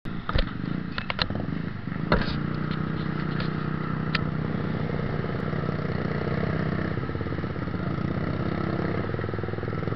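Yamaha Jupiter Z1's single-cylinder four-stroke engine and the motorcycles around it running at low speed in crawling traffic, a steady low hum. Several sharp clicks come in the first two seconds.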